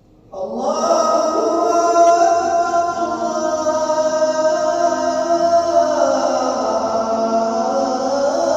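A male muezzin's voice chanting the azaan (Islamic call to prayer), starting a phrase just after a pause and drawing it out in long held notes, dipping in pitch partway through and rising again near the end.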